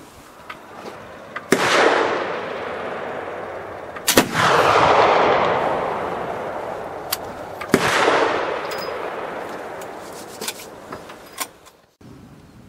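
Three shots from a Pedersoli flintlock Jäger rifle loaded with black powder and patched round ball, a few seconds apart. Each is a sharp crack followed by a long rolling echo that slowly dies away.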